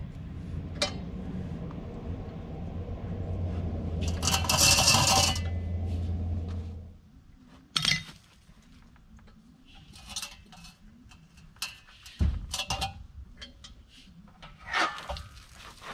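Scattered metal clinks and knocks from the well's tank and its fittings being handled once it is unscrewed and emptied. A steady low hum stops about seven seconds in, and a short loud hiss comes around four to five seconds in.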